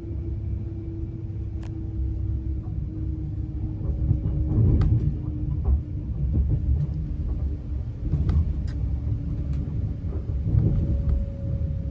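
Passenger train running, heard inside the carriage: a steady low rumble with a humming tone that slowly falls in pitch, and occasional light clicks and rattles.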